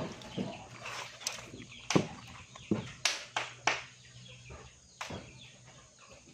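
Freshly salted live fish flapping and slapping against the inside of a stainless steel pot, in irregular sharp smacks, the loudest about two seconds in and several together around three to four seconds in.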